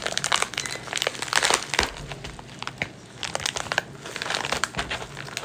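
Black plastic bubble mailer being handled and pulled open, crinkling and crackling in irregular bursts, with a short lull about three seconds in.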